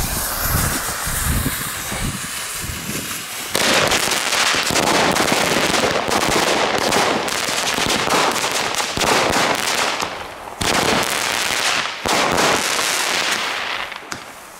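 A small chained set of consumer fireworks going off. First comes about three and a half seconds of hissing and sparking from the board, then the batteries fire a dense string of shots and crackling bursts for about ten seconds, thinning out near the end.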